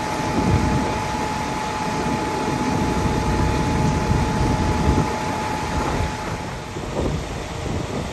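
Strong wind rumbling and buffeting on the microphone, with a steady high whine from a machine that stops about six seconds in.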